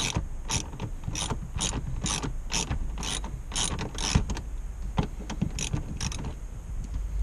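Socket ratchet wrench clicking in a steady rhythm, two to three clicks a second, as a 13 mm bolt on the shifter mount is backed out; the clicking stops about six seconds in.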